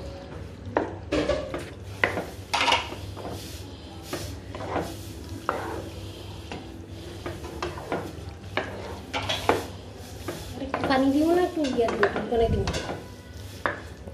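Spatula stirring thick, saucy macaroni in a nonstick frying pan, with irregular scrapes, soft squelches and knocks against the pan. A short pitched sound rises and falls about eleven seconds in.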